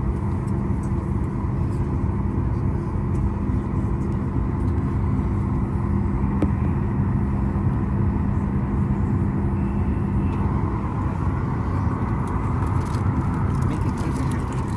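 Steady cabin hum inside a Boeing 737 MAX 9 on the ground after landing: its CFM LEAP-1B engines idling, with the air-conditioning rush. A steady low drone in the hum fades out about ten seconds in.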